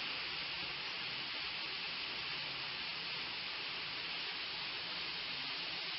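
Hot spring water pouring from a stone outlet and splashing into a channel below, a steady rushing hiss.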